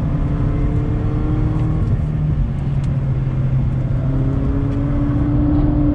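2019 Mazda MX-5 Miata RF's 2.0-litre inline-four pulling under throttle, heard from inside the cabin over a steady rushing noise: its note climbs gently, settles lower about two seconds in, and climbs again from about four seconds in.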